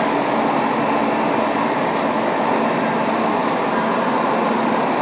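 Semi-automatic packing line running: belt conveyors and machinery making a loud, steady mechanical noise with a faint low hum underneath.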